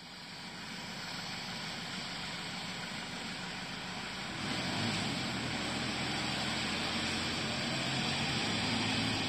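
Tractor engine running as it drives across the yard with a sweeper brush attachment, over a steady hiss. The engine hum grows louder about four and a half seconds in.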